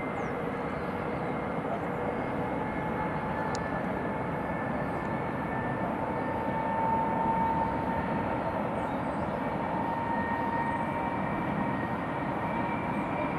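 Steady, distant hum of the city and its traffic below, with a faint thin whine that drifts slightly in pitch and swells a little about halfway through. A few faint high chirps.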